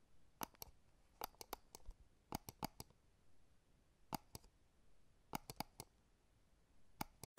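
Faint, sharp clicks in small irregular groups of two to four, nearly twenty in all, over near silence.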